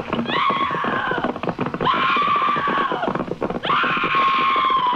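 Radio sound effects for a Western opening: a horse whinnying three times, each a long, high cry that starts with a sharp rise and then sags slightly in pitch, over a rapid clatter of hoofbeats and shots.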